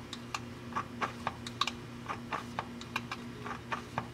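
Small hand-operated fluid pump on a gear oil bottle being stroked to feed oil into the rear differential: a run of light, irregular clicks, several a second, over a steady low hum.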